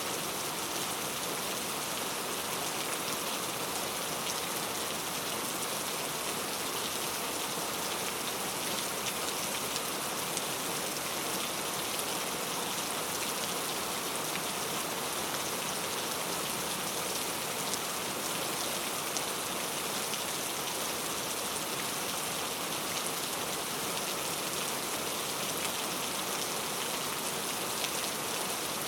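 Steady rain falling and pattering on surfaces, a dense even hiss of many fine drops with no pauses or swells.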